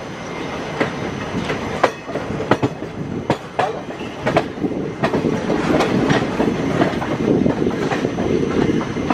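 Passenger train coaches' wheels clattering over rail joints and pointwork as the train runs through crossovers: sharp, irregular clicks over a steady rolling rumble, heard from an open coach door.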